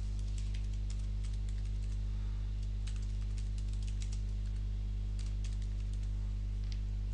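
Computer keyboard typing: irregular clusters of keystrokes with short pauses between them, over a steady low electrical hum.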